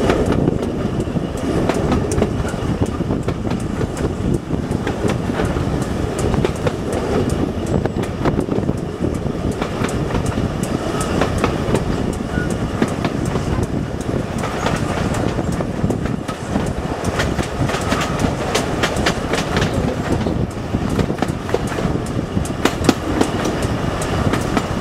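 Steam-hauled train's carriages running along the track, a steady rumble with the clickety-clack of wheels over rail joints, heard from an open carriage window; the clicks come thicker in the second half.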